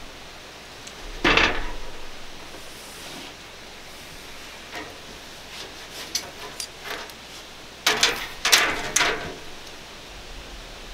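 Utility knife trimming the excess window screen mesh along the edge of the frame: one loud scraping cut about a second in, a few small clicks, then a quick run of four or five scraping strokes near the end.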